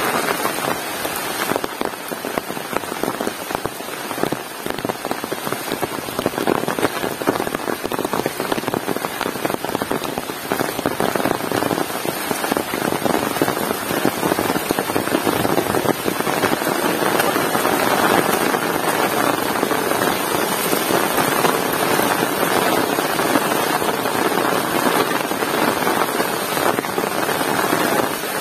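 Heavy rain falling steadily, a dense patter of drops on surfaces that grows a little louder about halfway through.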